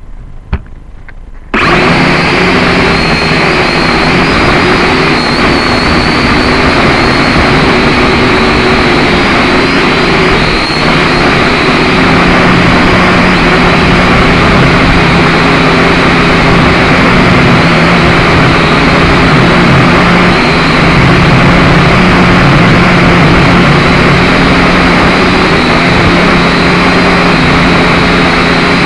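Syma X5C quadcopter's four small electric motors and propellers whining steadily, with several wavering hum tones over a rushing noise that takes in wind; the sound cuts in abruptly about a second and a half in.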